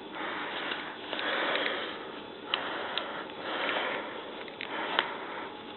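Lint being rubbed off a Servis tumble dryer's lint filter by hand: soft rustling swells with a few sharp small clicks.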